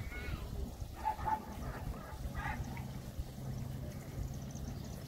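Faint voices of a waiting outdoor crowd over a low rumble, with a steady low hum coming in about two seconds in.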